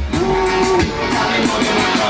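Reggae dancehall music played loud through a sound system: a melody line over a steady beat.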